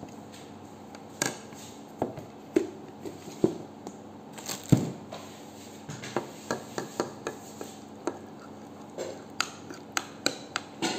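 Metal spoon clinking and scraping against a ceramic bowl while a thick sauce is stirred: separate taps at first, then quicker, more regular clinks from about six seconds in. A steady low hum runs underneath.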